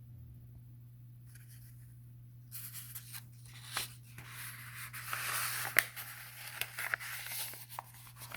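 Paper rustling and crackling with a few sharp clicks: a book's pages being handled and turned, starting about two and a half seconds in, over a steady low electrical hum.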